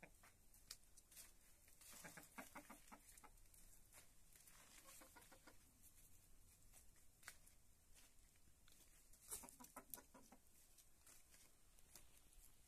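Domestic hens clucking faintly in three short bouts of quick clucks, with scattered sharp ticks in between.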